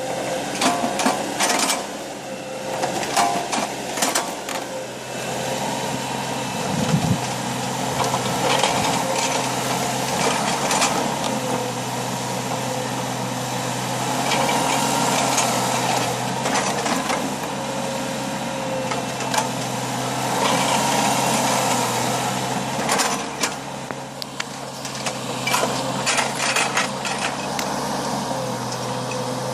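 Small backhoe's engine running steadily, its note shifting a little as the hydraulics work, with scattered clanks and scrapes from digging.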